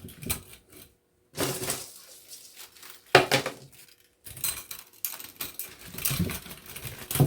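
Stripped copper wire being handled and packed into a jar: irregular rustling, scraping and metallic clinks, with one sharp clink about three seconds in.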